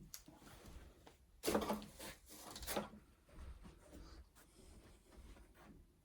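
Handling noises from unboxing: irregular rustling and light knocks, with the loudest bursts of rustling about a second and a half in and again just before the three-second mark.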